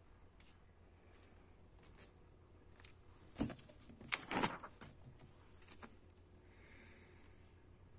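A textbook page being turned and the book handled: a short burst of paper rustling and crackling, loudest about three and a half to four and a half seconds in, with a few small ticks around it over a faint steady hum.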